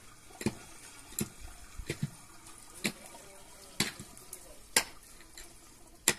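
A series of short, sharp knocks or clinks, irregularly spaced at roughly one a second, over a faint steady background.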